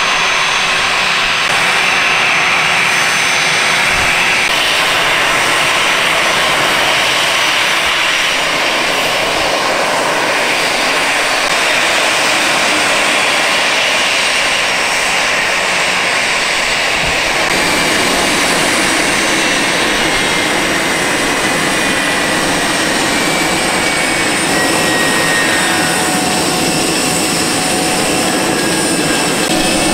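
Jet engines of a Citilink Airbus A320 running at taxi idle: a loud, steady roar, with high whining tones coming in about halfway through.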